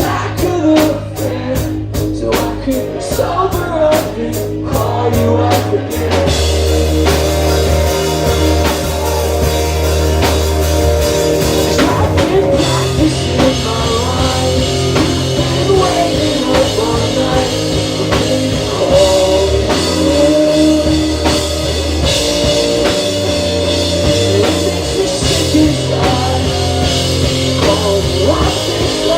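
Live rock band playing a loud passage on electric guitars, bass and drum kit, with little or no singing. About six seconds in, the band comes in fuller and the steady cymbal ticks give way to a dense wash of sound.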